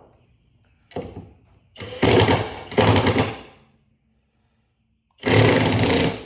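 Small DC motor in a 3D-printed bracket running in short bursts, each a loud, rattling buzz: a brief one about a second in, two back to back in the middle and a longer one near the end.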